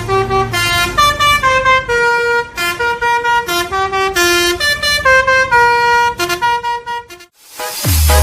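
An Indonesian 'telolet' bus air horn plays a quick melody of steady notes that change pitch every fraction of a second. About seven seconds in it stops. After a brief gap, a falling sweep leads into electronic dance music with a heavy bass.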